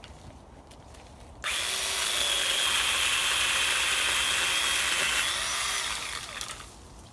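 Ryobi One+ OPP1820 18-volt cordless pole saw's motor and 8-inch chain starting abruptly about a second and a half in, then running steadily with a high whine for about four seconds while cutting through a thin branch, then dying away.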